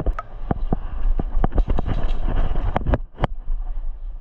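Irregular sharp clicks and knocks, several a second, over a low rumble of wind on the microphone.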